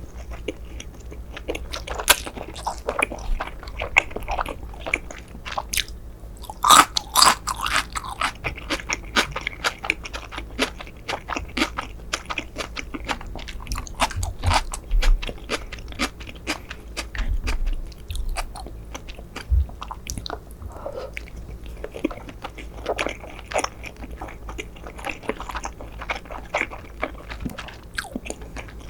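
Close-miked ASMR eating sounds: sushi being bitten and chewed, with many small wet mouth clicks and smacks and a louder flurry about seven seconds in.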